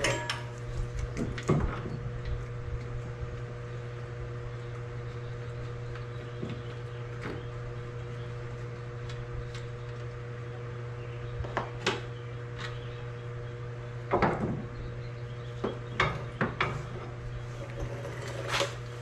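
Scattered clinks and knocks of hand tools and metal suspension parts being handled while a VW Golf front strut is unbolted and taken out, a cluster near the start and several more in the last five seconds, over a steady low hum.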